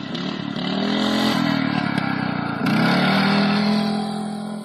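Lawnmower engine running hard and revving. Its pitch rises and dips in the first couple of seconds, then jumps up sharply, louder, about two and a half seconds in, holds, and eases off near the end.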